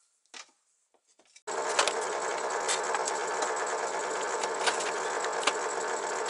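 A few faint clicks, then from about a second and a half in a steady, dense run of rapid clicking and rattling: 18650 lithium-ion cells being set into plastic cell holders.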